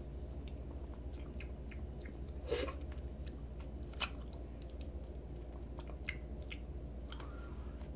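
A person chewing close to the microphone, with scattered small crunching clicks, two of them louder about two and a half and four seconds in, over a low steady hum.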